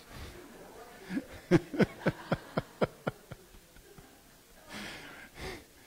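Laughter: a quick run of short 'ha-ha-ha' bursts, about four to five a second, lasting under two seconds, after the punchline of a joke.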